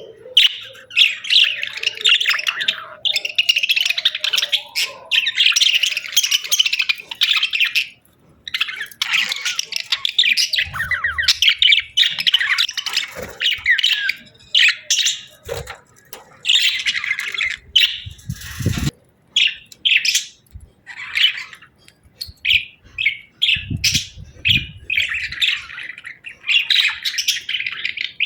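Budgerigars chirping and warbling in a steady run of rapid, high chatter with short pauses, plus a brief knock about two-thirds of the way through.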